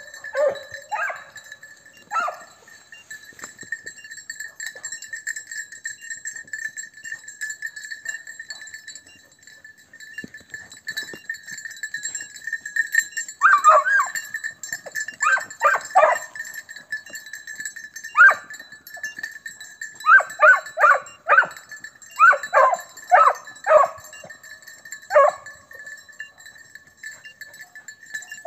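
Crossbred scent hounds baying on the trail of a hare, in short clusters of bays: a few near the start, a pause of about ten seconds, then repeated bays through the second half.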